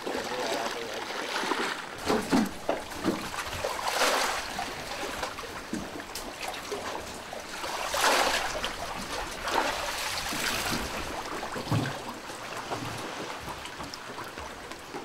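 Shallow seawater splashing and sloshing as people wade and move strings of fish through it, with several louder splashes, the biggest about four and eight seconds in.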